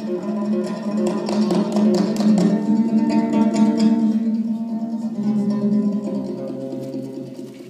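Solo Kazakh dombra playing a küi: strummed strokes over a steady drone with a melody above it, fast and dense in the first half, then lighter and softer toward the end.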